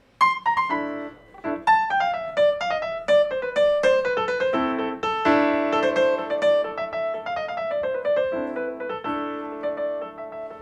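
Solo plucked-string instrumental music: quick runs of single notes stepping downward, with fuller chords about halfway through and again near the end.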